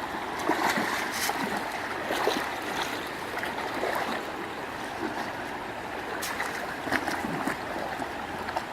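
Water trickling and splashing steadily, with small scattered splashes throughout.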